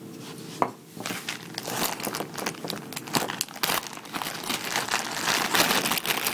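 Clear plastic bag crinkling and rustling irregularly as it is handled, with one sharp click about half a second in.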